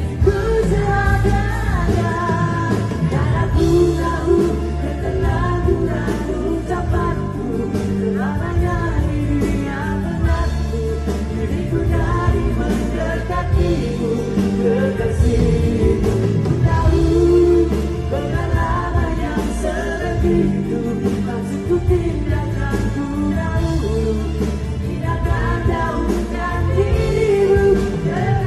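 Live band music with a male lead singer singing into a microphone over bass and drums.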